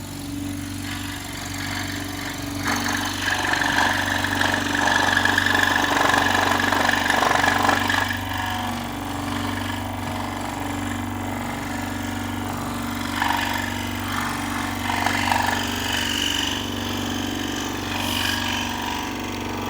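Electric scroll saw running with a steady hum while its reciprocating blade cuts wood. The cutting sound is louder from about two and a half to eight seconds in, and comes back in shorter spells later.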